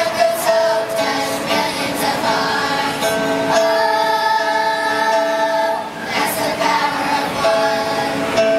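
Children's choir of fourth and fifth graders singing, with a long held note about three and a half seconds in and another starting near the end.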